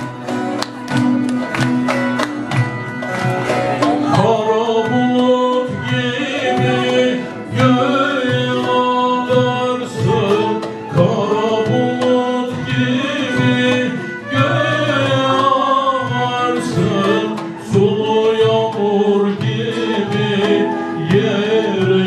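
Live Turkish folk song with bağlama and frame drum. Rhythmic hand clapping runs through the first few seconds. From about four seconds in, a male soloist sings the melody.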